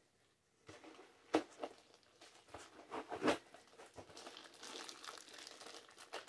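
A few light knocks of packaging being handled, then a small clear plastic bag crinkling softly for the last two seconds or so as it is handled.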